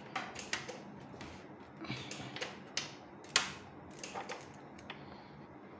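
Scattered light clicks and taps of hands working on a laptop, irregular and a fraction of a second to a second apart, with one sharper click about three and a half seconds in.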